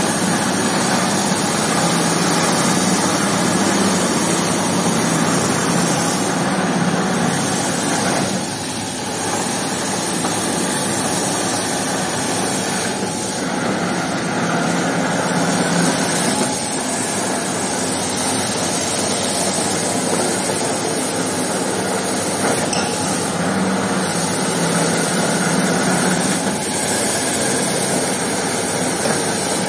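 Electric motor-driven rug-scrubbing machine running over a soaked, soapy carpet while a jet of water sprays across it: a steady mechanical noise mixed with rushing water.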